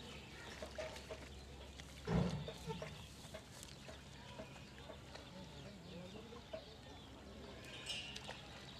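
Faint outdoor background with scattered short animal calls, and one brief louder sound about two seconds in.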